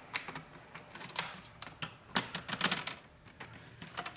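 Plastic screen bezel of a Lenovo Z50 laptop being fitted back onto the lid: a quick, irregular run of light plastic clicks and snaps as it is handled and pressed on, busiest around two seconds in.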